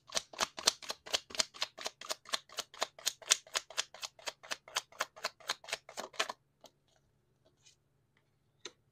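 A deck of tarot cards being shuffled by hand: a quick, even run of crisp card slaps, about five a second, that stops after about six seconds. A few faint card taps follow, and one sharper click near the end as a card is drawn.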